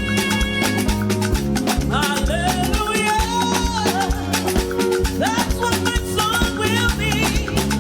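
Upbeat praise-and-worship music from a band with drums, held keyboard chords and a steady beat. About two seconds in, a melodic lead line comes in, sliding in pitch.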